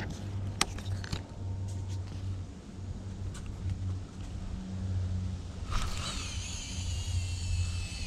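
Baitcasting reel spool whining as line pays out on a cast, starting a little under six seconds in, its pitch falling gradually as the spool slows. A steady low rumble runs underneath, with a few sharp clicks in the first second.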